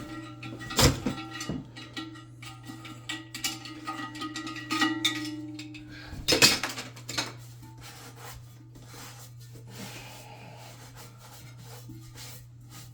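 Knocks, clinks and scraping from toilet parts and tools being handled during a toilet rebuild, with two loud knocks, one about a second in and one about six seconds in, and a steady low hum underneath.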